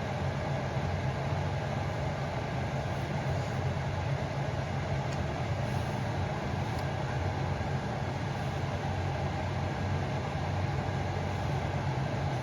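Panasonic humidifier's fan running steadily, a continuous whooshing hum with a low drone.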